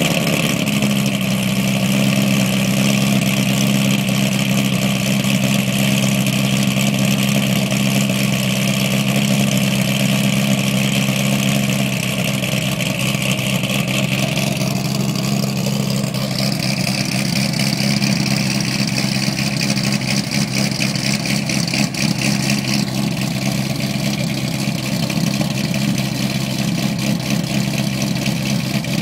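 Cammed LS3 V8 of a 2008 Corvette running at a high cold-start idle just after firing up, through headers, high-flow cats and an NPP dual-mode exhaust started in its loud mode. The engine runs steadily, with a slight drop in loudness and a change in its upper tone about halfway through.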